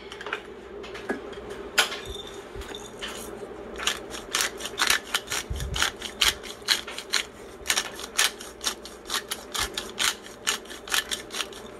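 Hand-twisted pepper grinder cracking black pepper, a long run of quick, sharp clicks that starts a few seconds in.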